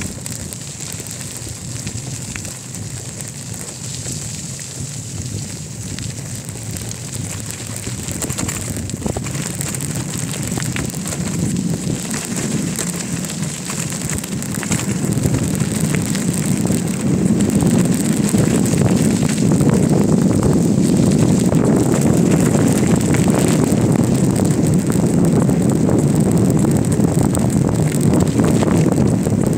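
Wind rushing over the microphone and tyres rolling over a rough dirt path as a bicycle coasts downhill, with small knocks and rattles over bumps. The rush grows louder and deeper about halfway through as the bike picks up speed.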